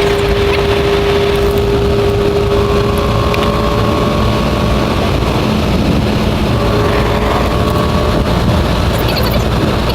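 Car driving at highway speed: a steady, loud mix of road, wind and engine noise with a faint held drone.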